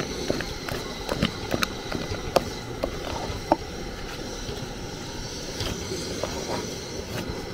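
Wooden spatula turning and stirring thick fufu dough in an aluminium pot: irregular knocks and scrapes of the wood against the metal, with a couple of sharper knocks in the middle.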